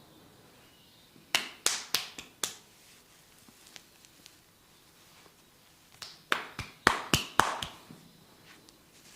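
Massage hand strikes on the head: a quick run of four or five sharp slapping taps a little over a second in, then another run of about six a second or two before the end.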